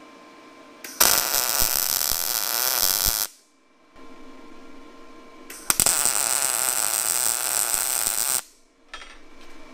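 Wire-feed welder arc sizzling in two welds of about two and a half seconds each, the first starting about a second in and the second near the six-second mark, welding a nut onto a short piece of steel pipe.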